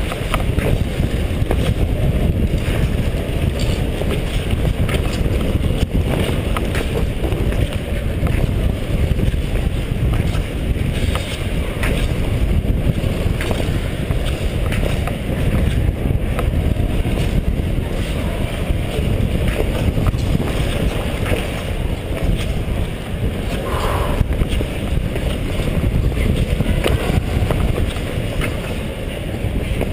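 Steady wind rush and buffeting on a helmet-mounted camera's microphone as a short-track speed skater skates laps at speed.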